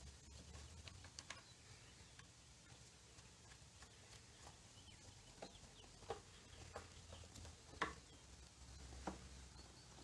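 Faint, scattered clicks and light taps from small parts being handled during work on a scooter's throttle cable, over a low hum. The sharpest click comes near the end.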